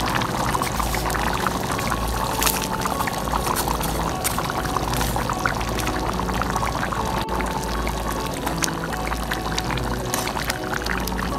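Background music over a pot of saucy stew bubbling and crackling as it simmers.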